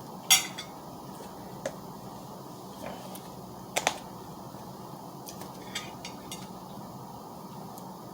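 Eating sounds: scattered sharp clicks and taps of utensils and dishes. The loudest comes about a third of a second in, and a quick double click falls near four seconds in.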